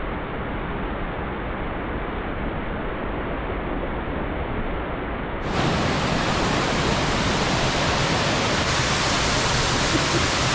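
Waterfall cascading over rocks into a pool: a steady rush of falling water. About five and a half seconds in it turns fuller and slightly louder.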